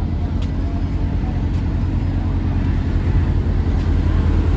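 Inboard engine of a FriendShip passenger boat idling steadily while moored at the dock, a low, even engine sound.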